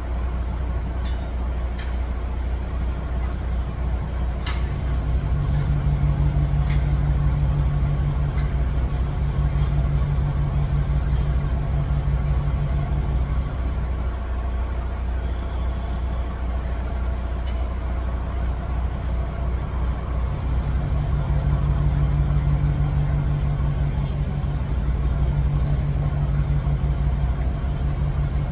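A vehicle engine running steadily at idle, speeding up under load twice for several seconds at a time before dropping back. A few sharp clicks come in the first several seconds.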